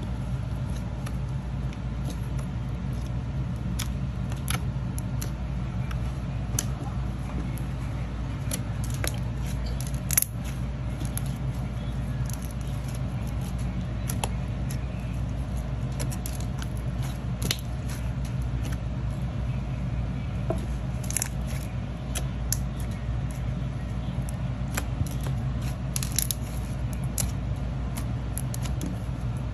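Soft slime being squeezed, pressed and folded by hand, with irregular little crackling pops and clicks as air pockets burst, over a steady low background hum.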